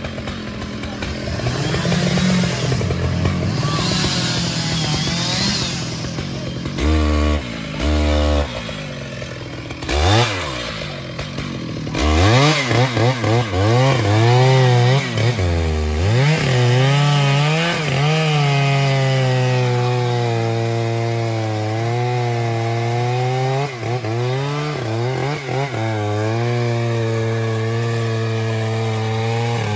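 Two-stroke chainsaw blipped a few times, then revved up and down and held at high revs cutting wood, the engine dipping briefly now and then under load.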